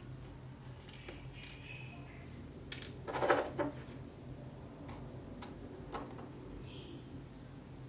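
Small lens parts clicking and clinking as they are handled and pushed together during reassembly of a CCTV lens, a handful of separate sharp clicks with a louder brief rattle about three seconds in.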